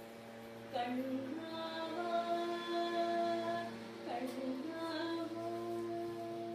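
A woman singing a devotional song in long, held notes, in two phrases: one begins about a second in and the next about four seconds in, each sliding up into its note. A steady drone sounds beneath the voice.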